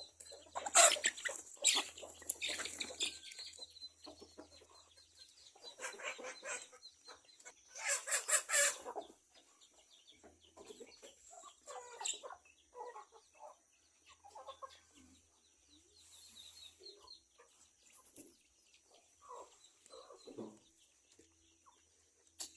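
Chickens clucking while they feed, with louder, noisier bursts near the start and again about eight seconds in.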